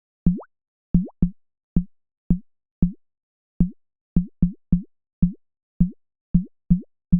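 Synthesized water-drop sound effect from a Bitwig Poly Grid patch: a string of about fifteen short plops at irregular intervals. Each plop starts low and glides quickly upward in pitch, some much higher than others.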